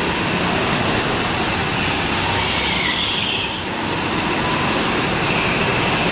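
Go-karts running on an indoor track: a steady, loud din of kart engines that fills the hall.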